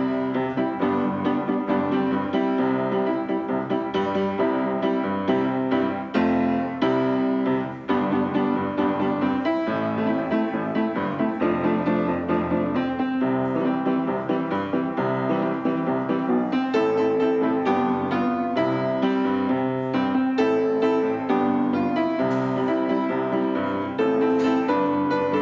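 Background piano music, a steady run of notes and chords with no voice.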